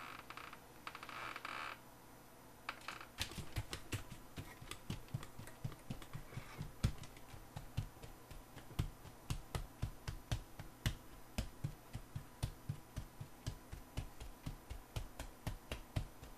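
Faint, irregular clicking or tapping, about three clicks a second, starting about three seconds in, after a brief soft hiss.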